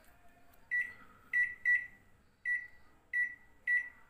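Microwave oven control panel beeping as its touch buttons are pressed to set a four-minute cooking time: six short, high-pitched beeps at uneven intervals.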